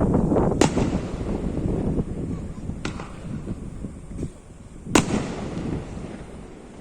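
Fireworks shells bursting in the sky: three sharp bangs a couple of seconds apart, the loudest about five seconds in, over dense crackling and a low rumble that die down after the first two seconds.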